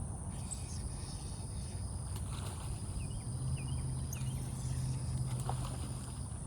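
Insects, crickets among them, keeping up a steady high-pitched drone over a low background rumble, with a few short bird chirps. A low hum joins in about three seconds in and fades near the end.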